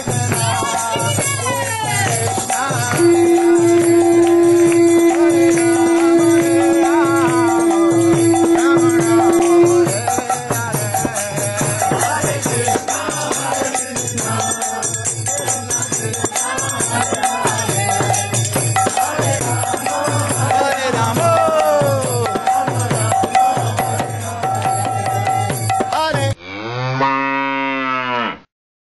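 Conch shell blown in one long steady note lasting about seven seconds, over a street kirtan of mridanga drum, rattling percussion and group chanting. Near the end the procession sound cuts off abruptly and a short swirling sound effect plays.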